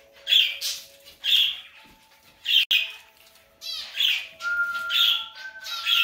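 Cockatiels giving loud, sharp chirping calls, six of them about a second apart, over a fainter whistled tune of long held notes.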